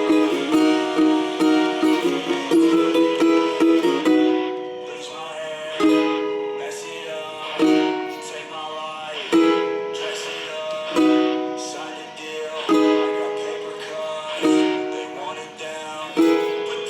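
Ukulele strummed chords: a busy strumming pattern for the first few seconds, then from about four seconds in single chords struck roughly every second and a half and left to ring.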